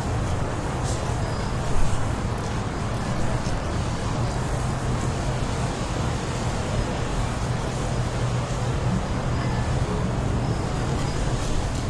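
Strong wind blowing steadily with a deep rumble, swelling briefly about two seconds in.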